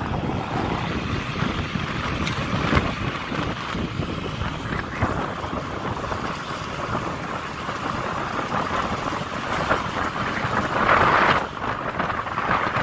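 Wind buffeting the microphone over the running of a small motorbike engine while riding along, with a stronger gust near the end.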